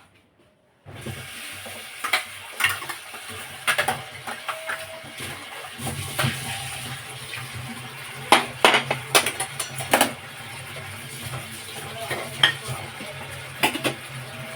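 Metal spoon or spatula clinking and scraping in a cooking pan while food is stirred, over a steady hiss and low hum of cooking on the stove, starting about a second in.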